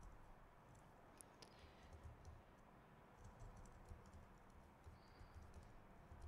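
Faint typing on a computer keyboard: scattered soft key clicks over a low room hum.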